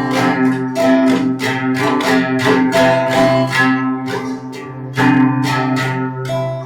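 Background music: a guitar playing a quick run of strummed chords, about two a second.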